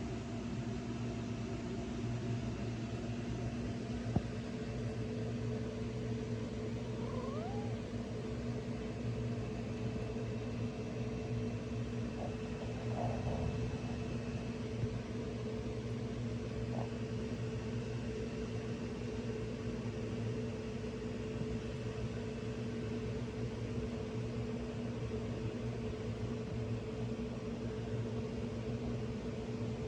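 House cat giving a short, faint rising meow about seven seconds in, with a few other faint short sounds later, over a steady machine hum.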